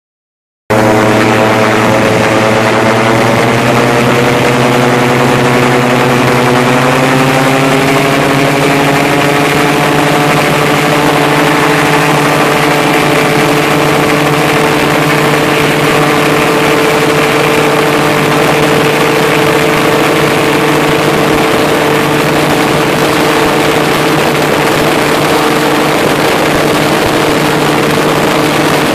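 Gyroplane's engine and propeller running loud and steady, heard from the open cockpit. The engine note climbs over the first several seconds and then holds steady as the machine rolls along the ground.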